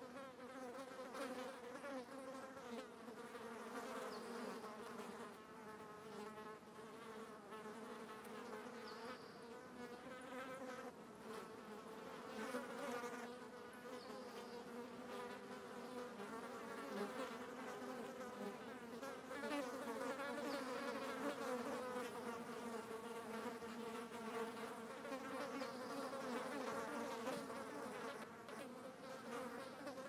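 Flies buzzing continuously, a droning hum that wavers in pitch and swells and fades in loudness.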